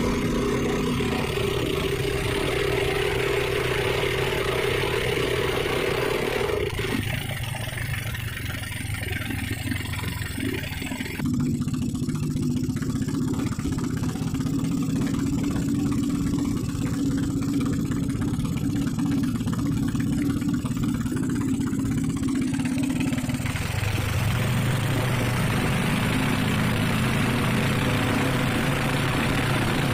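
An engine running steadily, its note changing a few times: it drops about seven seconds in, settles on a new steady tone about eleven seconds in, and shifts again a little after twenty-three seconds.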